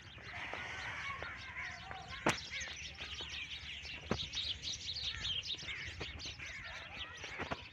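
Many small birds chirping together in a dense chorus, with a few sharp clicks.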